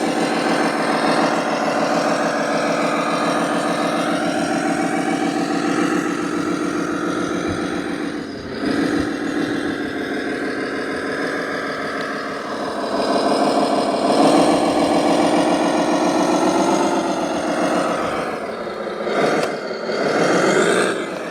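Truck engine sound running steadily, its pitch wavering a little, dipping briefly partway through and swelling louder again later, with a few knocks near the end.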